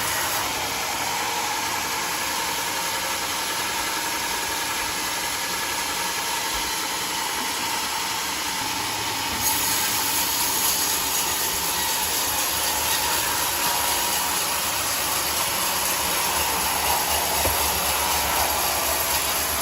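Band sawmill running, its blade sawing through a jackfruit log with a steady noisy hiss. About halfway through the sound turns brighter and slightly louder.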